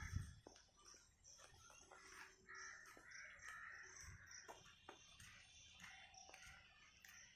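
Crows cawing faintly, short calls repeated again and again.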